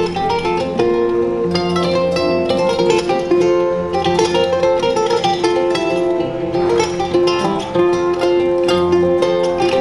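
A kora, the West African calabash harp-lute, played solo: plucked strings in a flowing, repeating melody over lower bass notes.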